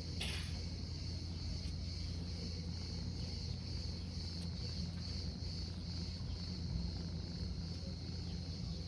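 Insects chirring steadily in a high, slightly pulsing band, over a low steady hum, with one brief sharp sound just after the start.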